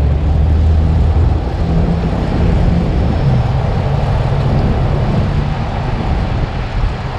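Heavy rotator tow truck's diesel engine running steadily at raised revs while its boom hydraulics hold the lifted tanker in the air. It makes a low hum whose pitch drops slightly about three seconds in.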